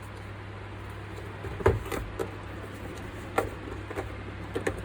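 A few scattered knocks and clicks as a keyboard and its packaging are handled, over a steady low hum.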